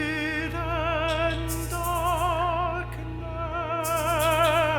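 Operatic tenor singing the word "hidden" in long, sustained notes with wide vibrato, over a chamber orchestra holding a steady low drone.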